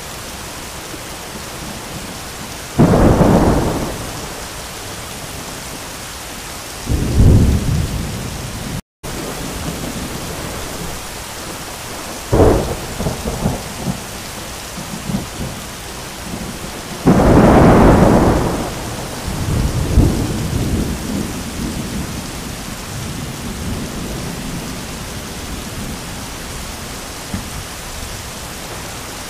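Heavy rain pouring steadily, with four sharp cracks of thunder a few seconds apart, the last one the longest and trailing off into crackling rumbles.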